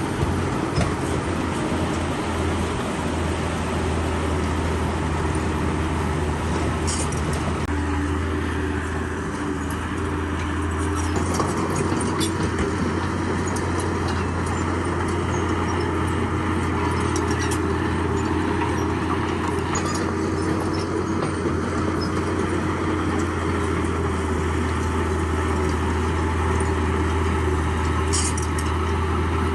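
Heavy earthmoving machine's diesel engine running steadily, with a few sharp clanks.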